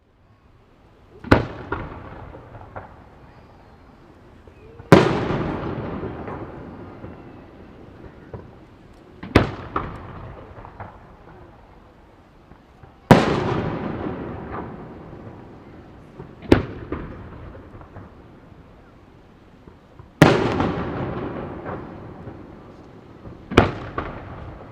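Aerial firework shells bursting overhead: seven loud bangs about every three to four seconds. Several are followed by a long fading rumble, with smaller pops in between.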